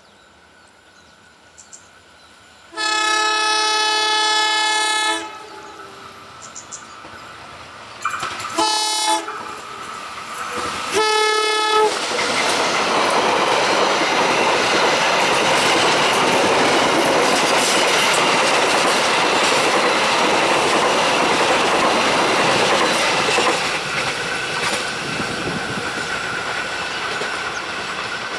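Train horn sounding one long blast and then two short blasts, followed by a train passing close by with a loud, steady rush of wheel and rail noise that eases off near the end.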